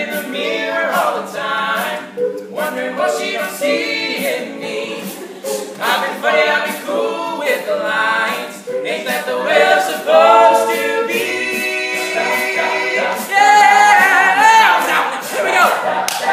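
All-male a cappella group singing in harmony, a lead voice over the backing voices, with a steady beat of sharp clicks running through it.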